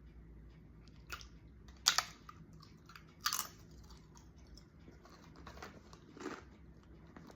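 Crisp cassava chips (singkong balado) being bitten and chewed close to the microphone: a few sharp crunches, loudest about two and three seconds in, then softer chewing.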